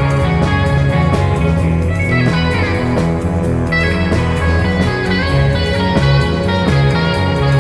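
Psychedelic rock band recording: electric guitar playing over shifting bass notes and a steady drum beat.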